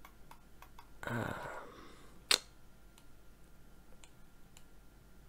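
Scattered clicks of a computer mouse and keyboard, with one sharp, louder click a little past two seconds in. A brief breathy sound about a second in.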